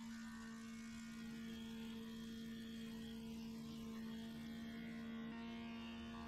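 Planer-thicknesser running with a steady hum while a length of 4x2 softwood feeds through its cutters, with a faint, even hiss of planing.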